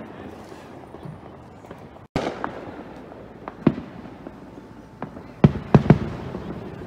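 Fireworks exploding: separate sharp bangs at irregular intervals, with a quick run of three near the end. The sound cuts out for an instant about two seconds in.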